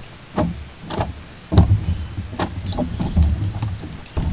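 About six irregular knocks and thuds on a small fibreglass sailing dinghy's hull and fittings while lines and gear are handled aboard. A deeper rumble runs between the knocks in the middle of the stretch.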